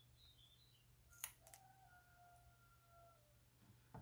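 Faint sound of green slime being squeezed out of a plastic piping bag: two soft clicks about a second in, then a faint steady squeak of about a second and a half that sags slightly in pitch as it stops.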